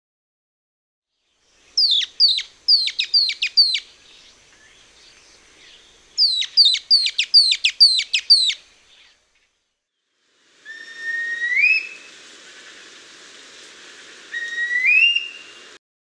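Old World flycatcher (ヒタキ) song: two quick runs of seven or eight high, sharply falling notes. A few seconds later, in a recording with a light hiss behind it, come two rising whistles a few seconds apart.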